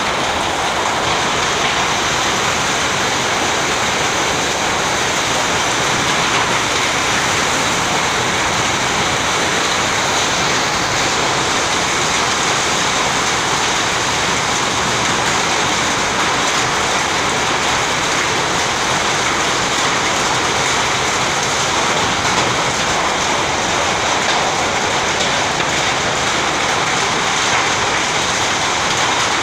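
Very heavy rain pouring down steadily, an even loud hiss with no break.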